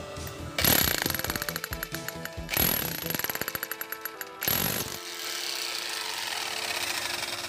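5 kg electric demolition hammer with a chisel bit breaking a brick block, in three bursts of rapid hammering blows over the first five seconds, then a steadier noise. It is being test-run with freshly fitted bit-retaining balls, and the bit now stays in place.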